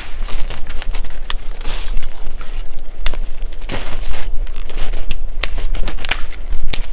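Dry dead branches and twigs snapping and cracking as they are broken off a fallen tree, with many sharp snaps and a few longer rustles of brush.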